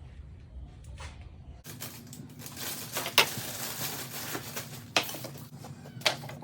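Scattered sharp clicks and knocks of parts being handled, over a steady hiss that begins abruptly about a second and a half in. The loudest click comes near the middle.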